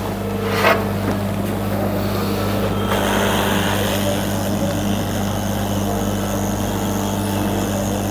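Hot-air rework station blowing over a TV panel's source board to heat and desolder a diode for replacement: a steady hum with a rushing hiss of air that grows louder about three seconds in.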